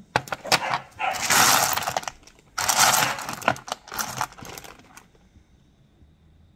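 Rough black opal pieces clicking and scraping against one another as they are shifted in the fingers: a run of sharp clicks with two longer rasping bouts, about a second and three seconds in, that dies away after about five seconds.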